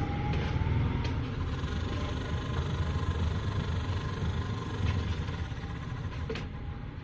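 Washing machine spinner motor running on a bench test after its jammed bush was freed and oiled, giving a steady low hum with a faint whine and a few light clicks.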